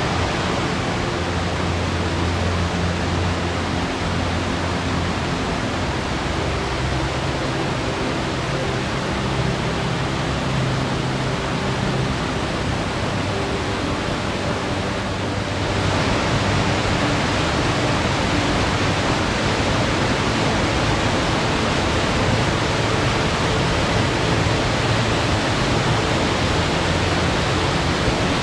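Rushing water, a steady dense hiss of a stream or cascade, stepping up a little louder about halfway through.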